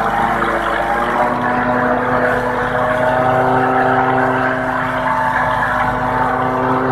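Tractor engine running steadily, driving a PTO forage chopper as maize stalks are fed in and chopped. The machine's hum shifts pitch slightly about one second and three seconds in as the cutter takes the stalks.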